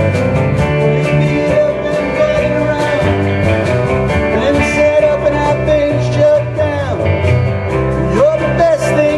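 A live band playing country-tinged rock with guitars, bass and a steady drum beat, under a held lead line that bends up and down in pitch.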